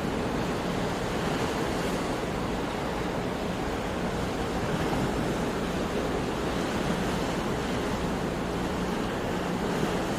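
Sea waves washing in a steady rushing surf, with no single crash standing out.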